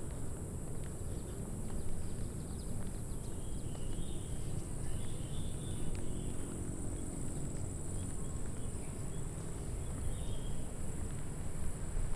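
Steady high-pitched insect drone, with a few short bird chirps over a low rumble.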